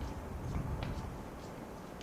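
Low rumble inside a 50-series passenger coach, with a few faint clicks.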